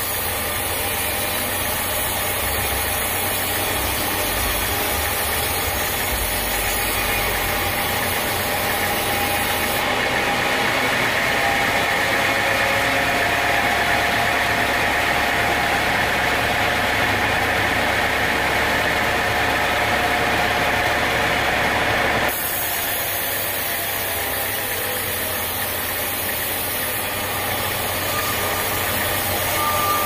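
Band sawmill running steadily as its band blade saws lengthwise through a teak log. From about a third of the way in until about two-thirds through the sound changes, with the blade running clear of the log, then it returns to the same steady cutting sound.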